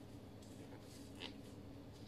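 Faint rustles and soft clicks of gloved hands handling a raw whole chicken, with one slightly crisper rustle a little past halfway, over a steady low hum.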